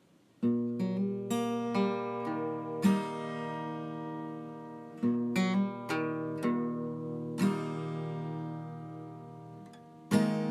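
Acoustic guitar music: strummed and plucked chords that ring out between strokes, starting about half a second in.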